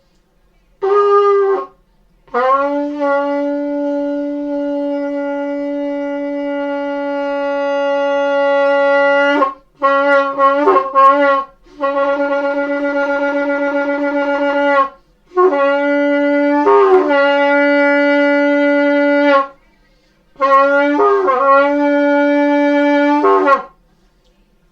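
Shofar blown in a series of blasts: a short call, then one long held note of about seven seconds, then several more blasts, some broken into short wavering notes, with pauses between them.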